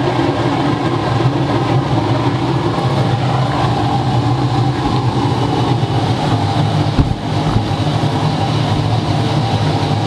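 A 300-kilowatt waste-oil burner running steadily, throttled back, with a low steady hum under the noise of the flame. A single short knock comes about seven seconds in.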